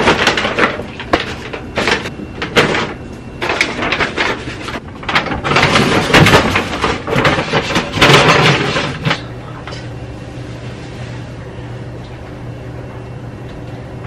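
Groceries being unpacked from a paper grocery bag and put away in kitchen cabinets: paper rustling, knocks of items set down and cabinet doors. After about nine seconds the handling stops, leaving a steady low hum.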